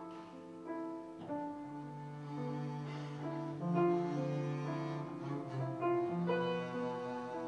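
Slow instrumental music played live: a double bass, bowed, holds long low notes while fuller chords are struck every couple of seconds above it.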